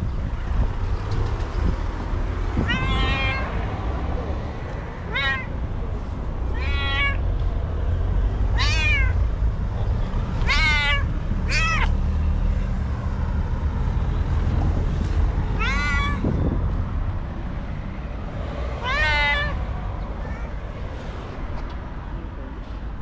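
White cat meowing about eight times, short calls spaced irregularly a couple of seconds apart, over a low steady background rumble.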